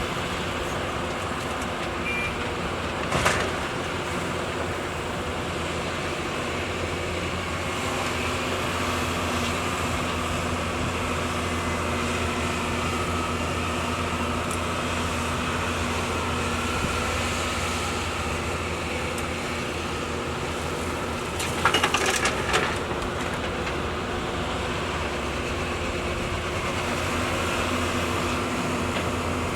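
Heavy-equipment diesel engine running steadily, with a single sharp knock about three seconds in and a quick cluster of metallic knocks about two-thirds of the way through.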